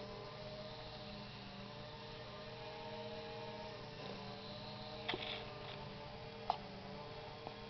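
Steady background hum made of several held tones, with a couple of brief faint clicks in the second half.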